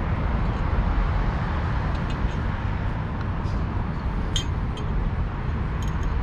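Steady low rumble of wind buffeting the microphone as it turns on a spinning playground merry-go-round, with a couple of faint metallic clicks near the middle and end.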